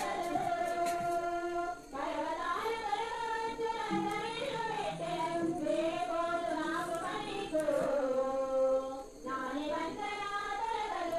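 Music with singing: long held sung notes that waver in pitch, breaking off briefly about two seconds in and again near nine seconds.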